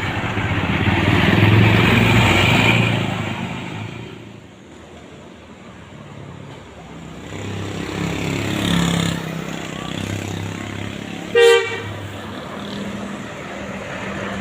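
Road vehicles passing by with engine noise, the loudest about two seconds in and another near the ninth second. About eleven seconds in, a single short horn beep sounds.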